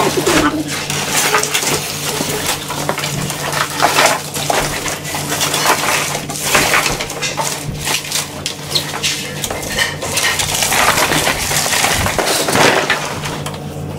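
Packing material being pulled off and handled: plastic wrap and foam packaging crackling and crunching in a dense run of quick crackles.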